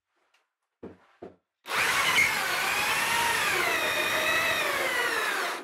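Electric drill boring a keel bolt hole into the wooden keel with a long auger bit. It starts about a second and a half in and runs steadily until it stops sharply at the end, its motor pitch sagging and recovering under the load of the cut. Two light knocks come before it starts.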